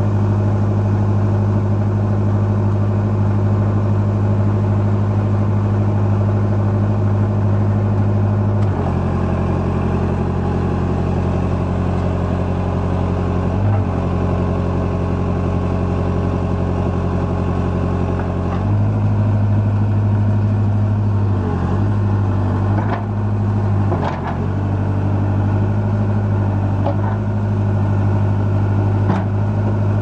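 JCB 214E backhoe's Perkins 1000-series diesel engine running steadily. Its speed sags slightly about nine seconds in and picks back up about ten seconds later. Several sharp knocks come in the last third.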